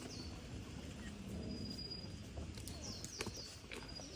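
A bird calling in quick series of short, high chirps, over a low steady rumble with a few sharp knocks.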